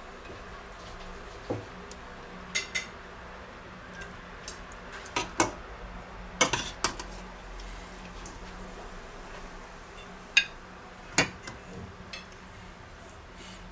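Serving spoons clinking and knocking against stainless steel pots and a ceramic plate while food is dished up: about a dozen short, sharp clinks at uneven intervals, a few ringing briefly, over a faint steady hum.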